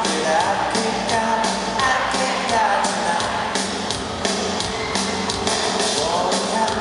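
Live rock band playing in an arena: a steady drum beat with guitars and keyboards, and a singer's voice over them.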